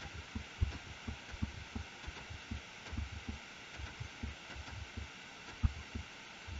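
Faint, short low thuds from a computer keyboard pressed over and over (repeated Ctrl+Z undo), a few per second and irregular, over a steady background hiss.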